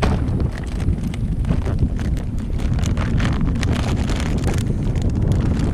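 Wind buffeting the microphone in a steady low rumble, with scattered light clicks and knocks throughout.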